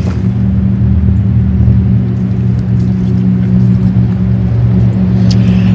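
Loud, steady low hum of a running motor.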